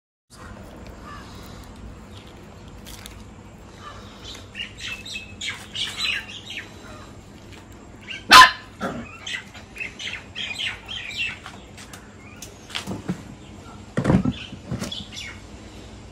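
Birds chirping in short repeated calls. A dog barks once loudly about eight seconds in and again near the end.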